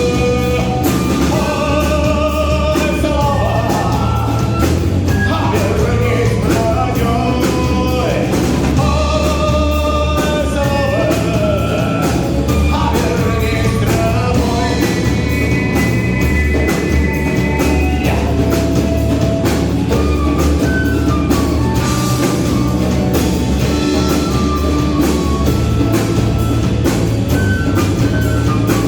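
A rock band playing live: a voice singing a melody over a drum kit and guitars, with a steady beat throughout.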